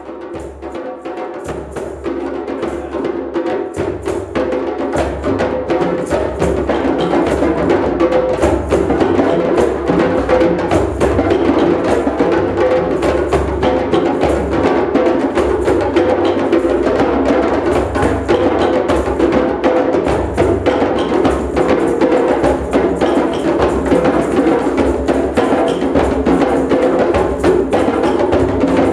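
Drum circle of many hand drums and percussion playing together in a dense, steady rhythm, with woody knocking strokes over deeper drum tones. It builds in loudness over the first several seconds, then holds.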